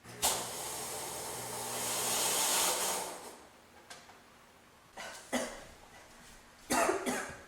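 Fog machine blasting a jet of fog: a loud hiss over a low motor hum that swells and dies away after about three seconds. A woman coughs twice near the end.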